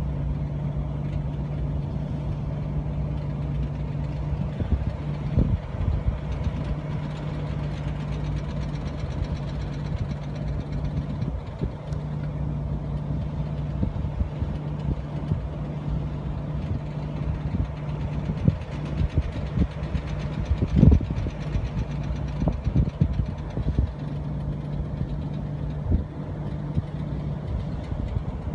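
The 258 inline-six engine of a stock 1983 Jeep CJ7 runs at a steady, even speed, with a few sharp knocks over it. The steady engine note drops away near the end.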